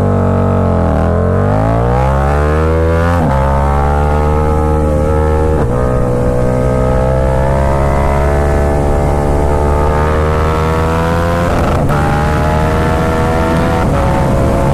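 KTM 1290 Super Duke R's V-twin engine, fitted with an Austin Racing exhaust, accelerating hard. The revs dip briefly and then climb, with quick upshifts about 3 and 6 seconds in, then keep rising in a higher gear.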